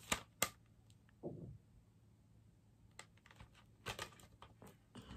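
Scattered light clicks and taps of a plastic CD case being handled and turned over, with a quick cluster of clicks about four seconds in.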